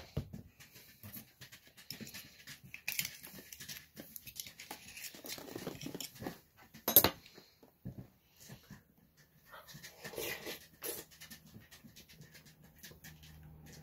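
A dog panting, with quiet handling noises and one sharp click about seven seconds in, of a knife against an oyster shell.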